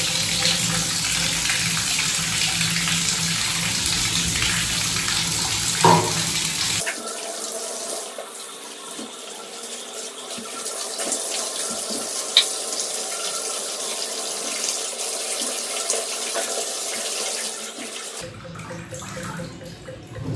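Water running from a bathtub spout and splashing over long hair as it is rinsed under the tap. Steady rushing that suddenly turns quieter and thinner about a third of the way in, with a single sharp click near the middle.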